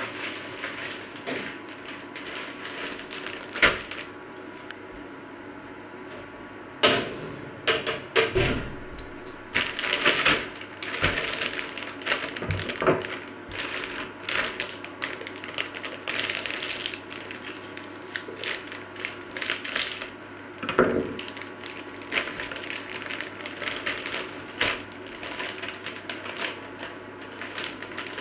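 Plastic bag of frozen mixed vegetables crinkling and rustling as it is handled and slit open with a knife, in irregular crackles with a few sharp knocks.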